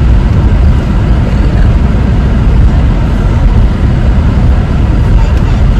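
Steady, loud low rumble of a moving car, road and engine noise.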